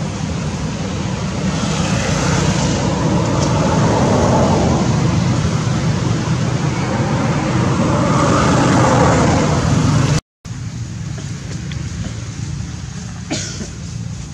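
Road traffic noise: a steady rumble as vehicles pass, swelling about four seconds in and again near nine seconds. It cuts out abruptly about ten seconds in and comes back quieter.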